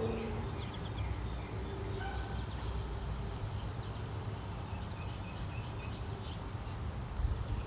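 A few faint, short bird chirps over a steady low rumble.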